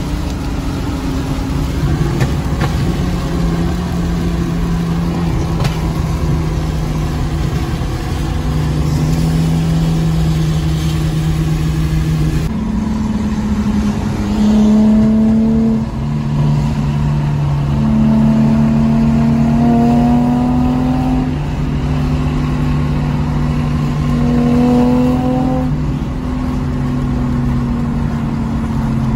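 Car engine heard from inside the cabin, running steadily at first, then accelerating repeatedly through the gears in the second half, rising in pitch and dropping back at each shift, over continuous road and tyre noise.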